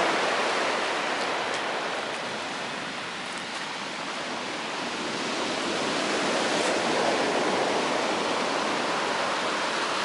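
Sea surf breaking and washing over a pebble beach: a steady rush of water that eases a few seconds in and swells again later.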